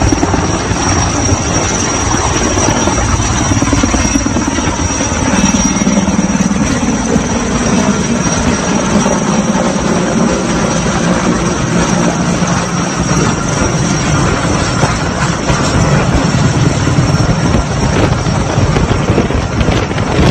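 Helicopter running steadily and loudly, its rotor beating over a thin, steady high whine.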